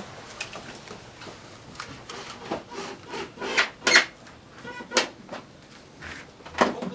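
Irregular scraping and rubbing strokes from hands-on construction work, a handful of louder strokes in the middle and near the end.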